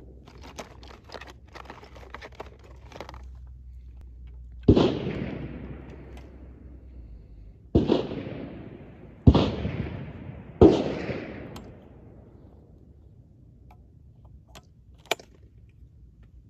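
Four loud shotgun shots at uneven spacing, the middle two about a second and a half apart, each trailing off in a rolling echo. Small clicks of gun handling come before them and again near the end.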